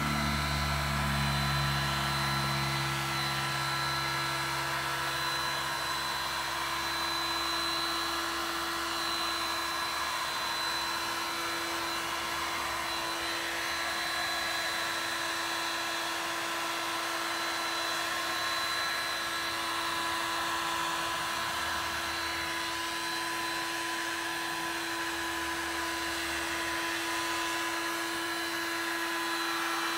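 Mastercraft heat gun running steadily, a constant fan whine over a rush of hot air, as it heats an aftermarket headlight's seal to soften it for prying the lens off.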